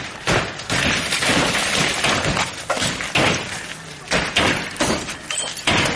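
A bus being beaten by several men: a run of heavy thuds and bangs as blows land on its windscreen and front panels, several a second or so apart.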